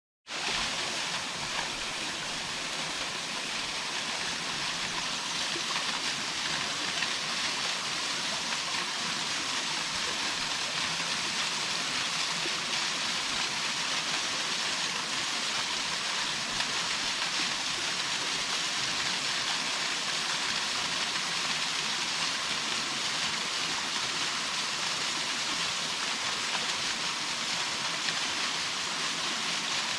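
Waterfall rushing: a steady, unbroken hiss and roar of falling water.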